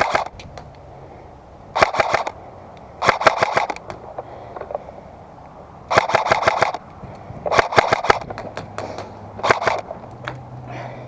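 Airsoft guns firing short bursts of rapid shots, about seven bursts each lasting under a second, with gaps of one to two seconds between them.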